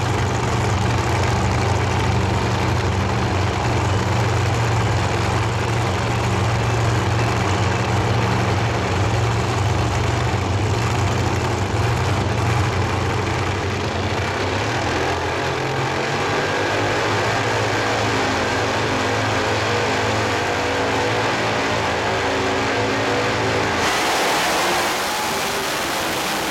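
Two Top Competition drag-racing car engines running at the start line, a steady low note that later shifts and rises as the revs build; about 24 seconds in the sound changes abruptly to the cars running down the drag strip.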